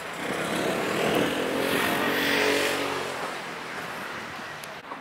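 A motor vehicle passing by, its engine swelling for about two seconds and then fading away.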